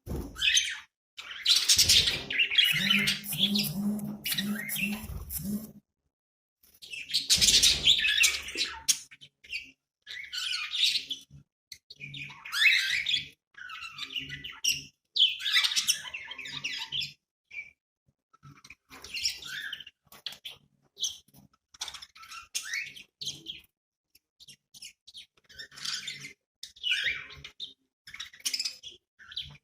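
Budgerigars chirping and warbling in short, busy bursts with brief pauses between them, the loudest bursts about two and eight seconds in. A low buzz runs under the chirps from about three to five seconds in.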